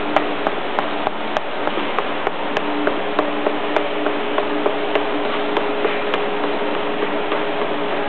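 Mark One roll-to-roll perforator running, its perf blades working against a brush roller: a steady machine hum and hiss with a sharp, regular tick about three times a second.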